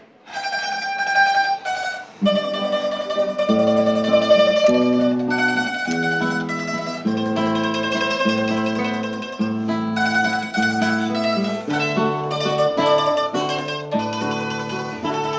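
A mandolin playing a melody over an acoustic guitar accompaniment, with the guitar's bass notes coming in about three seconds in.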